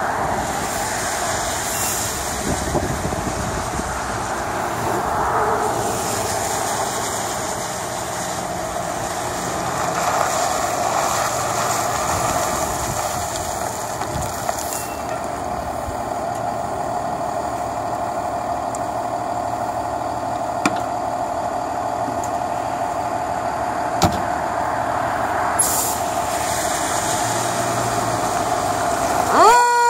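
A 2017 Spartan Metro Star fire pumper's diesel engine running steadily as the truck pulls out, with a couple of short air-brake hisses. A siren starts winding up at the very end.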